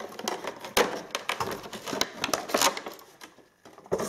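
Stiff clear plastic packaging crackling and crinkling in irregular bursts as the mouse and its cable are worked free of their plastic shell.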